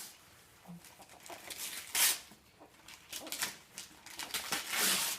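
Wrapping paper rustling and tearing in several short bursts, the loudest about two seconds in and again near the end.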